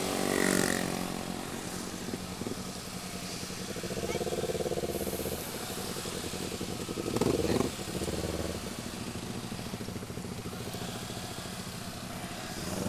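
Motorcycle engine running while riding, its note swelling briefly about four seconds in and again around seven seconds, over a steady rush of wind and road noise.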